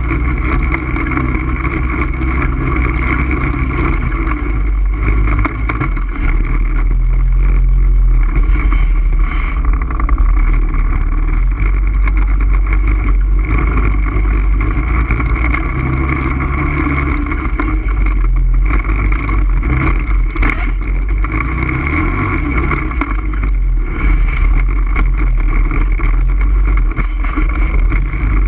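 All-terrain vehicle engine running steadily while riding, with a heavy low rumble and small rises and dips in level.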